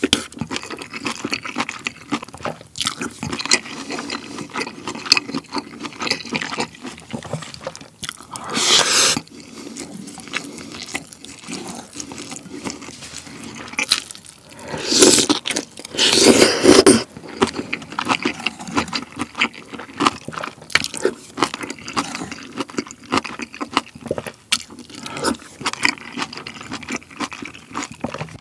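Close-up eating sounds of pork-belly kimchi stew: wet chewing and mouth clicks on kimchi and pork belly, and slurping of broth from a spoon. There are louder slurps about a third of the way in and twice a little past the middle.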